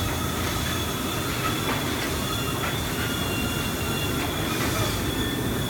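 Steady rumble of factory machinery, with a thin high squeal running throughout and a second squealing tone joining in the middle, like metal wheels or pulleys running under load.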